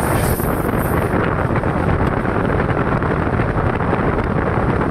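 Passenger train running at speed: a steady loud rush of wheel and rail rumble with wind buffeting the microphone at the open door, and a high wind hiss that fades about a second in.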